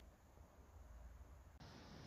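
Near silence: faint background hiss, a little stronger from about a second and a half in.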